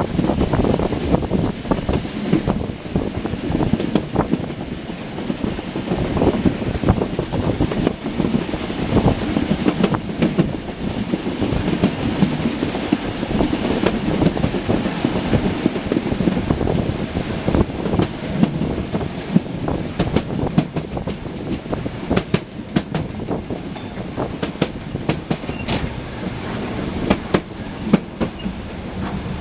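Narrow-gauge train running along the track, its wheels clattering over the rail joints with many irregular clicks.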